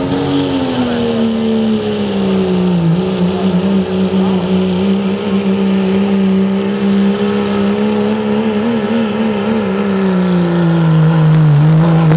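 Dodge Ram pickup's Cummins diesel at full throttle pulling a weight-transfer sled. Its engine note falls in pitch at the start, holds, then sinks further over the last couple of seconds as the sled's load builds and drags the engine down.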